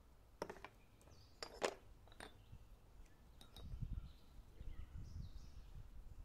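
Small ceramic spice pots and a metal spoon clinking: a few sharp clicks in the first two and a half seconds, the loudest about a second and a half in, and one more near the middle, followed by a low rumble of handling.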